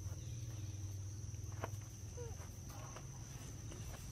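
Steady high-pitched insect drone, like crickets or cicadas, over a low rumble, with a single sharp click about one and a half seconds in and a faint short chirp just after.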